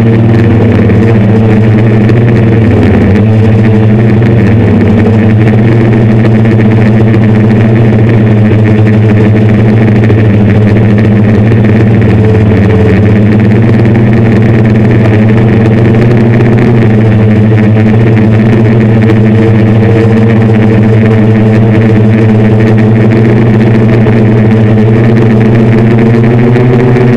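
Hexacopter's six 750Kv brushless motors spinning 10x5 APC propellers in flight, heard from the onboard camera: a loud, steady, many-toned drone whose pitch wavers slightly with throttle changes.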